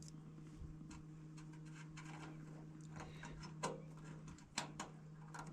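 Scattered light clicks and taps of small metal parts being handled as a furnace flame sensor is fitted back and screwed into place, with a few sharper clicks about three and a half and four and a half seconds in, over a steady low hum.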